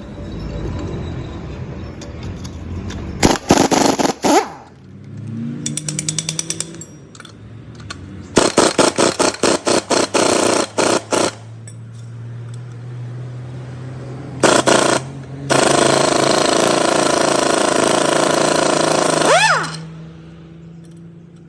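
A power tool hammering in short bursts of rapid blows, then running steadily for about four seconds before it winds down, over a steady low hum.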